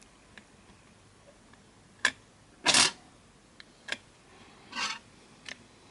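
Plastic clicks and clacks of a DAT cassette being handled and set into an open tape-transport mechanism: a sharp click about two seconds in, a louder clack just after, then a few lighter clicks and a brief rattle.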